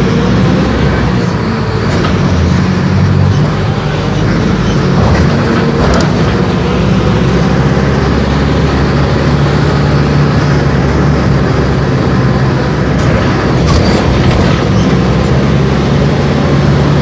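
Mercedes-Benz OF-1418 city bus under way: its diesel engine runs with a steady low hum, with road noise and a few knocks and rattles from the body.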